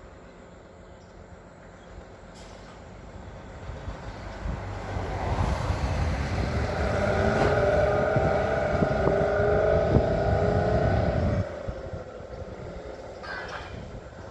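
Drill rig truck's diesel engine revving up under load with a steady whine on top, then dropping back abruptly about eleven seconds in.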